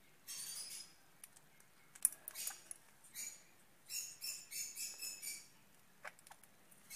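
Budgerigar giving harsh, high-pitched squawks while held for a beak trim, coming in short groups with a fast run of calls about four seconds in. A single sharp click sounds just after two seconds.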